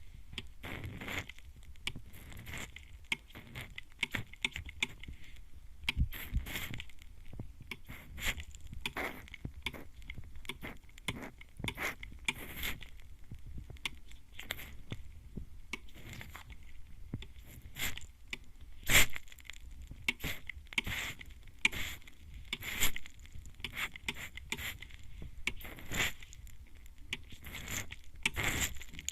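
Hand-held mist spray bottle sprayed at close range into a microphone's ear, in short spray puffs about one or two a second at an uneven pace, one louder spray about two-thirds of the way through.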